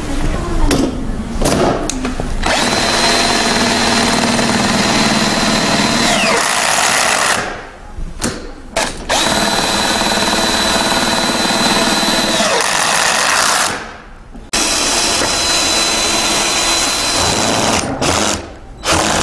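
Cordless drill/driver running in three long steady stretches of several seconds each, with a high motor whine. The work is fastening the rooftop tent's mounting brackets to the roof crossbars.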